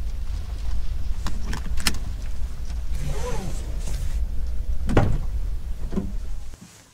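Driver's door of a 2018 Mercedes-Benz Sprinter being opened, with a louder clunk about five seconds in, over a low steady rumble in the cab. A few sharp clicks come earlier, and the sound cuts off suddenly near the end.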